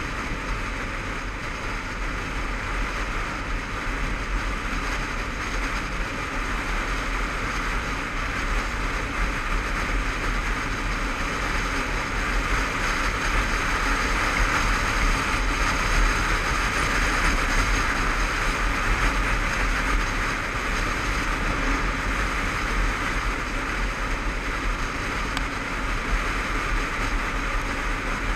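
Riding on a Honda CBF500 motorcycle: a steady rush of wind noise over a helmet-mounted action camera, with the bike's running engine underneath. It swells somewhat in the middle and eases toward the end.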